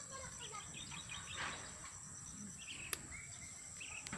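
Field ambience of insects in a steady high drone, with short bird chirps scattered through it and a sharp click about three seconds in.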